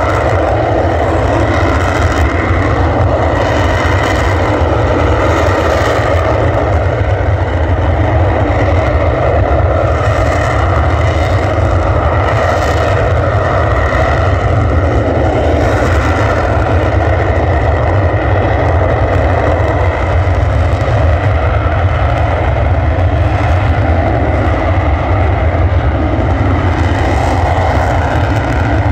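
Jet engines of two Dassault Mirage 2000 fighters running loud and steady on the runway, a deep rumble with a faint whine over it.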